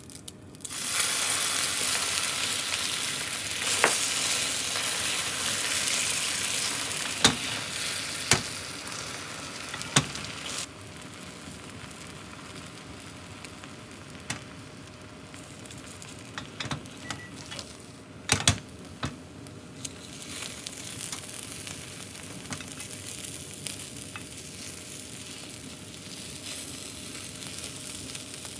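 Beaten egg sizzling in a hot square iron tamagoyaki pan: a loud sizzle starts about a second in as the egg hits the pan and settles to a quieter sizzle after about ten seconds. Wooden chopsticks click against the pan several times while the omelette is spread and rolled.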